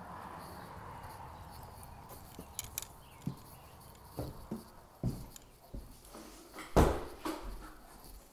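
Footsteps on a hard bare floor: a string of short thuds and scuffs, the loudest about seven seconds in, after a soft steady hiss at first.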